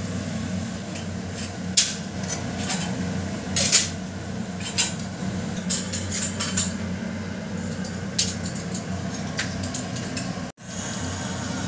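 Metal spoon clinking and scraping against a steel bowl while mixing onion and gram-flour (besan) batter, as irregular clicks over a steady low hum. After a short break near the end, hot oil sizzles.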